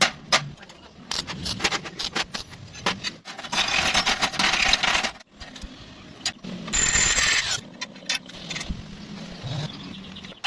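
Metalwork on a 90-degree steel welding joint: sharp metal taps and clicks, with two stretches of hissing crackle from arc welding, the first about three and a half seconds in and a shorter one about seven seconds in.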